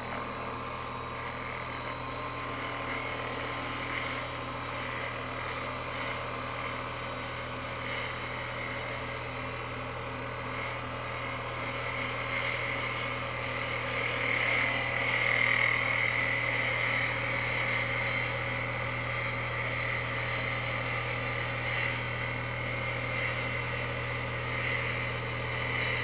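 Wood lathe running with a steady hum while a skew chisel, held flat as a scraper, cuts the tenon on a spinning end-grain anacua bowl blank. The hiss of the tool scraping the wood swells about halfway through.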